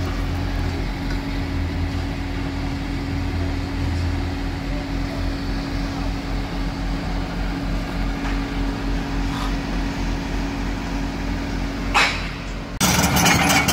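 Tracked excavator's diesel engine running steadily with a low, even hum. About a second before the end the sound cuts abruptly to louder engine noise with rapid clattering.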